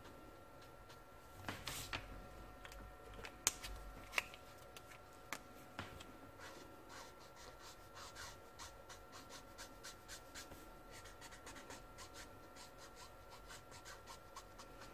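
Brush-tip marker flicking short strokes on brown toned paper: faint, quick scratches and ticks of the tip on the paper, a few sharper ones in the first several seconds.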